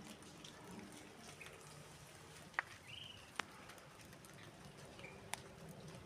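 Light rain falling, a faint steady hiss with a few sharp drips striking a hard surface, three of them in the middle.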